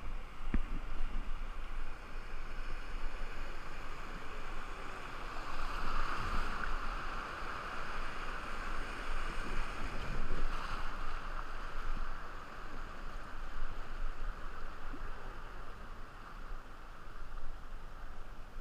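River white water rushing past a raft in a rapid, a steady hiss that swells louder in the middle and eases off again.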